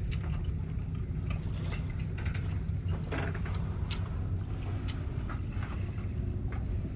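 Steady low rumble of wind and water aboard a sailboat running downwind in light wind, with scattered faint clicks.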